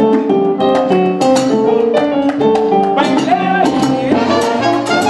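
Live salsa band playing, with keyboard chords over a steady percussion beat.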